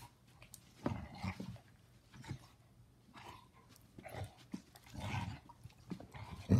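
Basset hound making short vocal sounds in play, about six of them at roughly one-second intervals.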